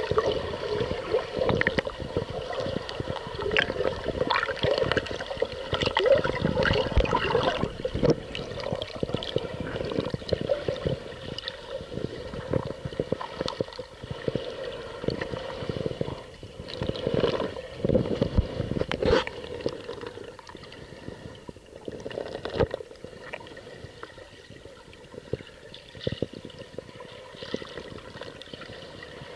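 Muffled water sounds heard through an action camera held underwater: irregular gurgling and rushing with many small knocks. It is louder at first and settles quieter after about twenty seconds.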